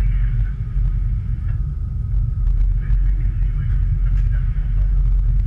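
Boat engines running with a steady, deep rumble.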